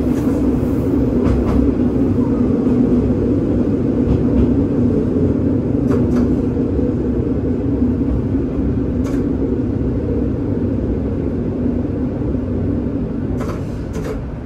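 Diesel railcar running on jointed track, heard from inside the cab: a steady engine and transmission drone with wheel rumble and a few rail-joint clicks. The drone eases off over the last few seconds as the train slows into a station.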